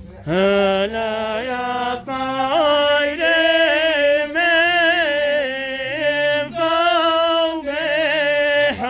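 An unaccompanied voice singing a traditional Yemeni ma'ina chant. It holds long, wavering, ornamented notes in phrases with short breaths between them.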